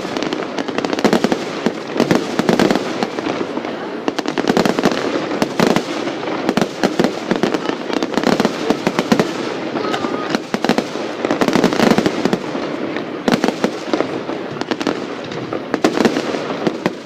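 Fireworks display going off: a rapid, continuous barrage of bangs and crackles, with a few louder bursts standing out.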